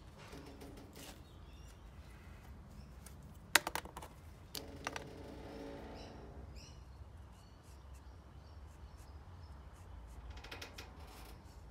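Handling noise from an axe head, wooden handle and marker pen: a quick run of sharp clicks about three and a half seconds in, a couple more knocks a second later, and light rubbing and scraping in between.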